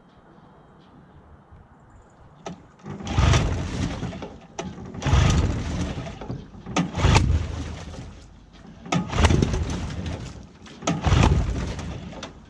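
15-horsepower Johnson outboard motor being pull-started: five hard pulls on the recoil starter about two seconds apart, the motor turning over with each pull and dying away without catching, with a few sharp clicks in between.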